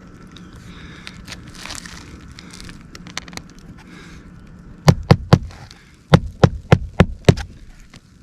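Hammer driving roofing nails into a re-seated asphalt shingle, refastening it. There are three quick strikes about five seconds in, then five more in a steady run a moment later. Before that there is faint rustling and handling.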